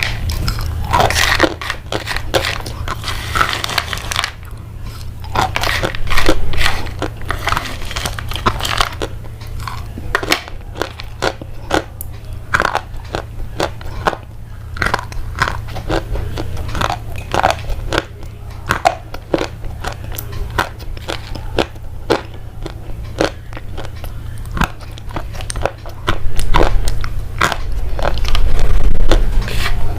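Crisp crunching and crackling in quick, uneven short cracks, over a steady low hum, growing louder near the end.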